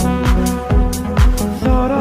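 Background electronic dance music with a steady kick-drum beat, about two beats a second, under sustained synth notes.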